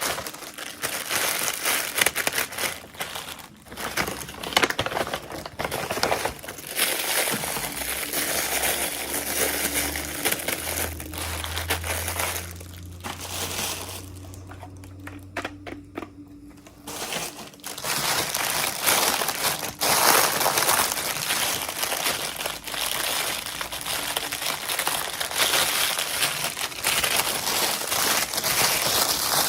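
Plastic packaging crinkling and crackling as it is handled and opened, in a steady run of rustling with a short quieter pause about halfway through.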